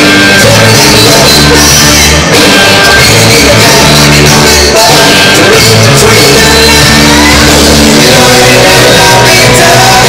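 Loud backing music with a steady, repeating bass beat, playing under a stage illusion routine.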